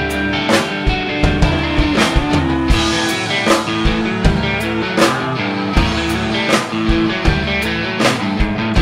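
A live rock band playing with electric and acoustic guitars over a drum kit, the kick drum keeping a steady beat a little more than once a second.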